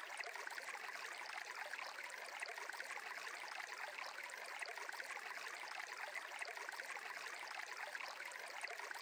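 Faint, steady sound of running water, like a small trickling stream.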